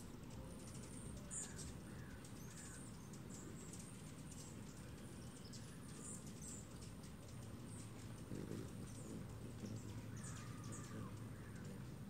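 Hummingbirds at nectar feeders giving scattered short, high chips and ticks. A few lower, falling calls come about two seconds in and again near the end, over a faint steady low rumble.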